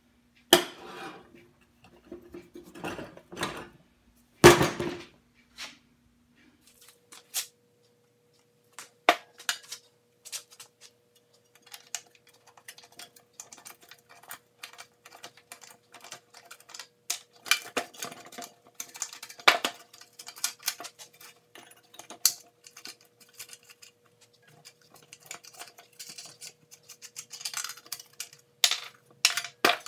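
Irregular metal clinks, taps and scrapes of hand tools on steel wagon hardware: locking pliers working a push nut off a wheel axle, then the steel steering bracket and axle rod being handled. One loud metallic knock about four and a half seconds in.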